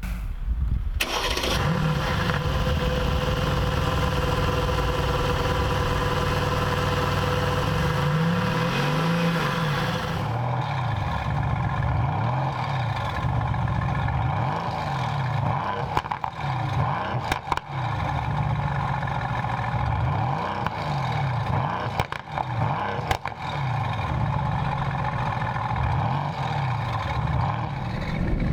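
Mercedes-AMG GT S twin-turbo V8 through an aftermarket flap exhaust, started about a second in and held at a steady high idle. From about eight to ten seconds on it is blipped again and again, each rev rising and dropping quickly, about a dozen short revs.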